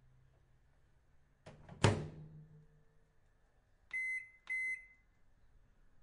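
Microwave oven door shutting with a click and a loud thud about two seconds in, followed by two short high beeps from its control panel about half a second apart.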